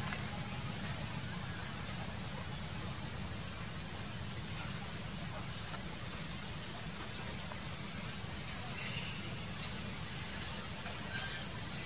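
Steady high-pitched insect chorus over a low steady rumble, with a few faint short chirps in the last few seconds and a brief click near the end.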